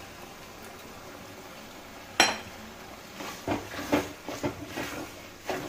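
One sharp metal clink about two seconds in, then a spatula scraping and knocking against a metal kadai in irregular strokes as cream is stirred into macaroni.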